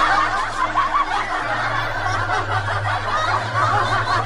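Continuous high-pitched laughing, wavering without a break, over a steady low hum.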